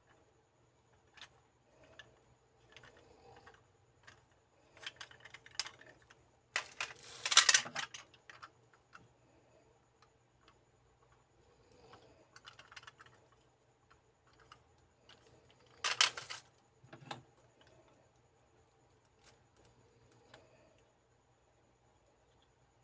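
Small hard-plastic Kyutama toys being handled, giving scattered light clicks and taps. There are two louder plastic clatters, one about seven seconds in and one about sixteen seconds in.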